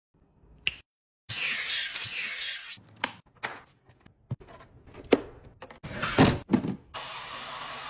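Robot vacuum heard in quick cut-together shots: two stretches of loud fan hiss, one near the start and one near the end, with scattered plastic knocks and clicks between them.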